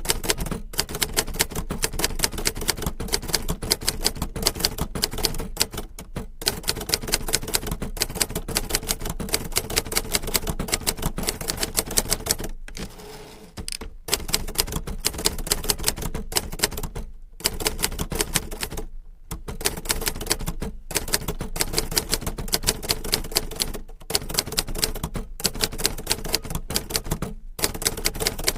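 Manual typewriter being typed on in fast runs of key strikes, with short pauses between bursts and one longer pause about halfway through.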